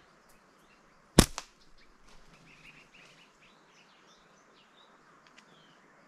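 A slingshot shot: one sharp loud snap about a second in, with a smaller crack just after it. Small birds then chirp in short high notes for a few seconds.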